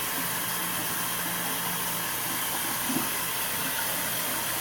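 Bathroom faucet running steadily into the sink, the water stream splashing over a facial cleansing brush head held under it for rinsing.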